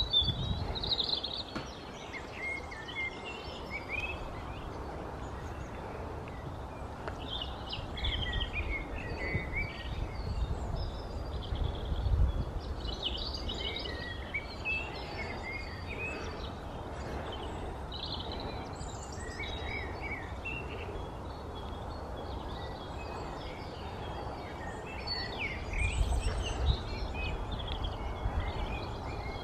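Small birds chirping and singing in the background, a scatter of short high calls throughout, over a steady noise floor. A few low rumbles come and go, the strongest about twelve seconds in and again near the end.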